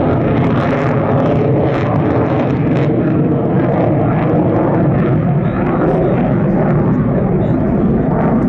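F-16 fighter jet flying a display overhead with its afterburner lit: loud, steady jet engine noise.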